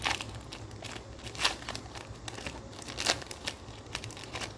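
Foil wrapper of a Pokémon Vivid Voltage booster pack being torn open by hand. It crinkles and crackles unevenly, with the sharpest rips about a second and a half in and about three seconds in.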